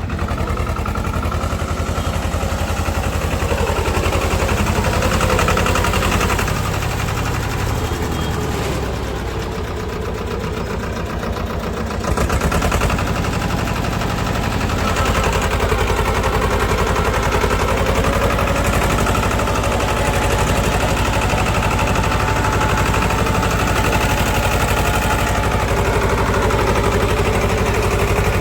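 Swaraj tractor's diesel engine running with a fast, even chugging of exhaust pulses. It eases off a little for a few seconds in the middle, then picks up again about twelve seconds in and holds steady.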